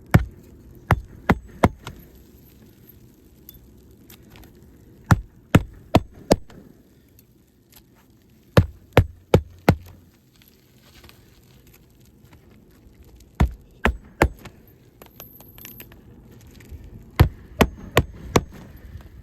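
Hammer driving roofing nails back into an asphalt shingle: five sets of three or four sharp blows, about three a second, each set one nail.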